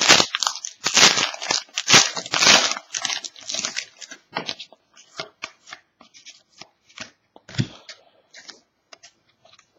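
A trading card pack's wrapper being torn open and crinkled, with dense rustling for the first few seconds, then the cards being handled in short, scattered rustles and clicks.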